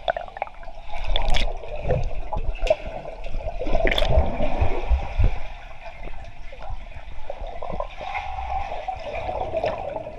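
Muffled water noise heard underwater in a swimming pool, from swimmers moving about: a steady rushing haze with low thuds and a few sharp clicks, and bubbles near the end.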